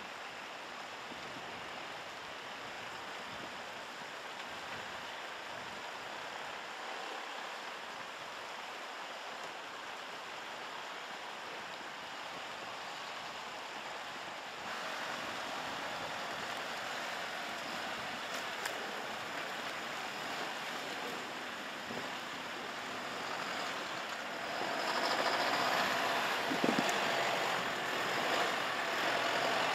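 Mercedes-Benz Unimog U 4023 off-road truck driving slowly over snow and rocks, heard as a steady rushing noise with little engine note. The noise steps up about halfway through and gets louder near the end.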